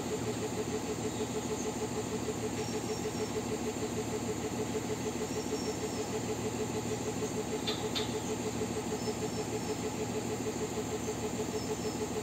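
An engine running steadily at idle, with a fast, even pulse and a low hum throughout. A couple of faint clicks come about eight seconds in.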